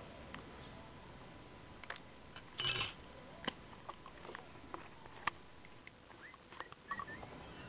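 Scattered light clicks and taps of a metal spoon against a ceramic plate as an egg is broken open, with a short scraping rustle about three seconds in.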